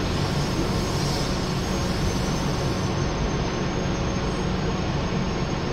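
Injection moulding machine running in production on a 16-cavity bottle-cap mould: a steady mechanical drone with a low hum. A hiss rises over it for about the first three seconds.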